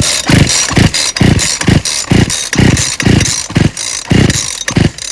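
Poulan chainsaw engine being cranked by hand on its recoil starter cord for a compression test, with a rapid series of about a dozen strong, even pulses, roughly two a second, as the piston comes up against compression without firing. The compression is very high, about 175 psi, strong enough to pull the saw toward the person pulling.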